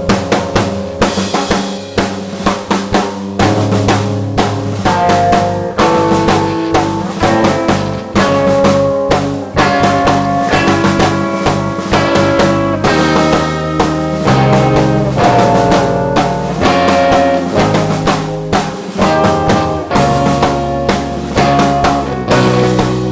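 Band music with a drum kit keeping a steady beat of snare and bass drum strokes under pitched instruments playing changing notes.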